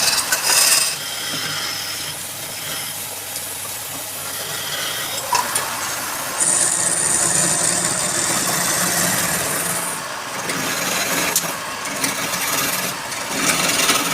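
Wood lathe running while a turning tool scrapes the spinning wood, a steady rasping hiss that grows brighter and higher for a few seconds in the middle.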